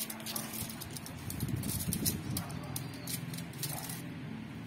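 Many small, irregular clicks and scratches as dalgona honeycomb candy is picked and broken apart on a sheet of aluminium foil, with the foil crinkling.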